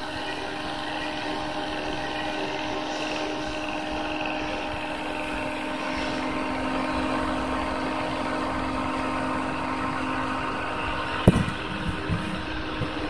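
Two 12-volt computer case fans running as a homemade exhaust fan: a steady whir with a low hum. Near the end comes one sharp knock, then a few lighter taps.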